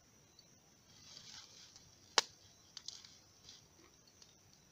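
Small wood fire of twigs and sticks crackling, with a soft hiss and scattered pops, one sharp loud pop about two seconds in.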